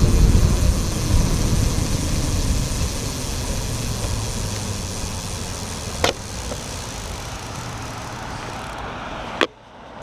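Wind rushing over the microphone and bicycle tyres hissing on wet asphalt while riding, slowly quieting as the bike slows. A sharp click comes about six seconds in and another near the end, after which it goes much quieter.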